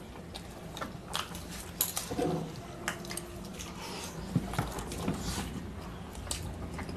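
Quiet eating sounds: chewing and mouth clicks while fingers mix rice on a plate, giving scattered soft clicks and taps throughout.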